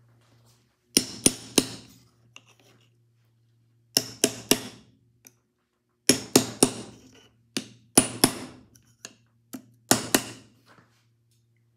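Hammer striking a punch to stake the plate onto a Victor III phonograph's mainspring barrel: five bursts of about three quick metallic blows each, every blow ringing briefly.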